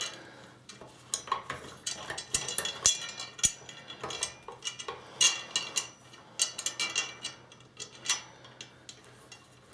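Irregular small metallic clicks and light scrapes, some with a brief ring, as Phillips screws are threaded by hand up through the steel tube stand into the threaded inserts of a halogen work light fixture.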